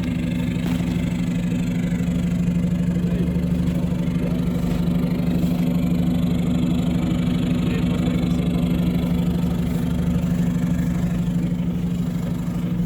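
Off-road 4x4's engine idling steadily, a constant low hum with no revving.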